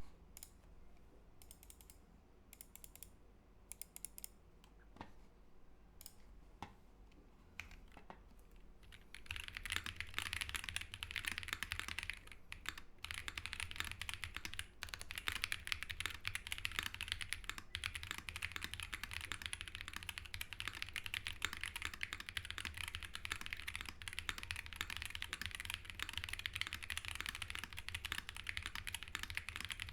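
Mechanical keyboard with Holy Panda tactile switches, an aluminum plate, GMK Oblivion keycaps and all foams fitted, being typed on. Single keystrokes come a second or so apart at first; about nine seconds in, continuous fast typing starts, with a brief pause near 13 seconds.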